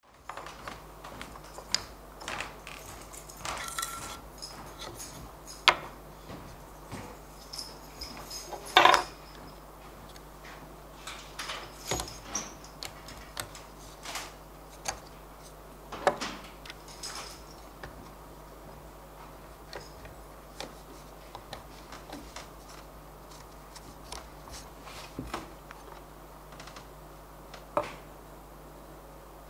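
Pieces of pine board and blue plastic one-hand bar clamps being handled and tightened on a wooden workbench: scattered knocks and clicks, the loudest about six and nine seconds in, and a sharper knock near the end.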